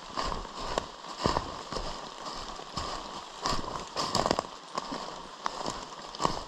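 A hiker's footsteps and hiking-pole strikes on the forest floor, uneven knocks and crunches roughly one or two a second, with a cluster of louder knocks about four seconds in.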